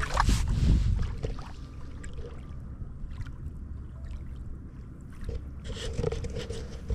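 Small ripples lapping and washing onto a sandy lake shore. A low rumble is loudest in the first second and a half.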